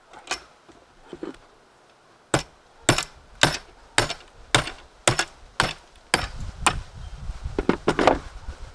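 A hammer striking a salvaged electronic part again and again to break it open, about two blows a second, with a few quicker blows near the end.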